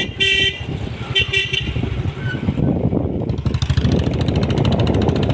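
Motorcycle running on the move with steady engine and road noise. A vehicle horn gives a few short beeps right at the start and again about a second later.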